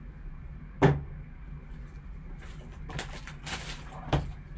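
A cardboard trading-card box handled on a tabletop: a sharp knock about a second in, a stretch of rustling, then two more knocks near the end as it is lifted and set down.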